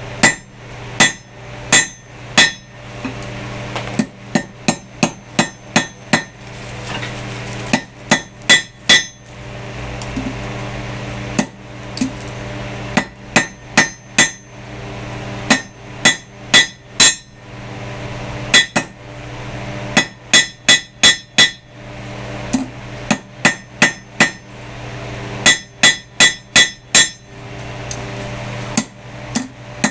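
Hand hammer striking hot steel on an anvil, with a metallic ring to each blow, in quick runs of several strikes broken by short pauses, as the end of a small rebar pendant's handle is set down and drawn out to form its hanging loop. A steady low hum runs underneath.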